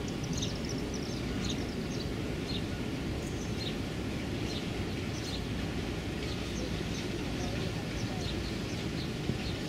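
Steady low rumble of a tugboat's diesel engines running under way, with birds chirping briefly and repeatedly over it.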